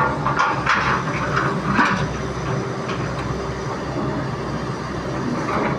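Excavator's diesel engine running steadily, with a few short, louder noises in the first two seconds.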